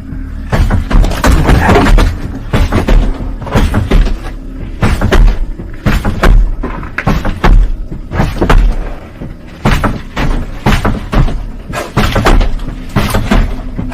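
A door banging and slamming over and over, with loud irregular thuds and knocks in an echoing room, over a faint steady hum.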